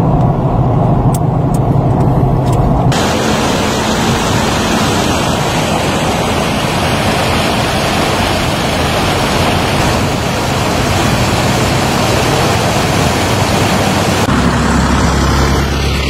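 Vehicle engine and road noise while driving. About three seconds in it cuts to a steady rush of floodwater pouring over a breached road. Near the end a deep, low engine idles.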